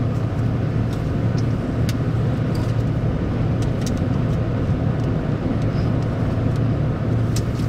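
Steady low engine hum and road noise of a moving motor vehicle, with a few light clicks.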